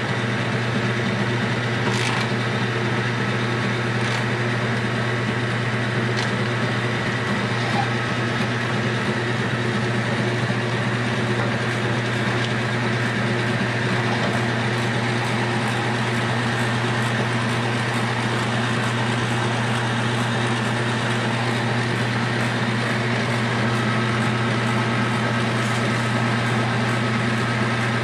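Metal lathe running under power while turning down a steel bar, a steady hum from its motor and gearbox with a faint whine of gears above it.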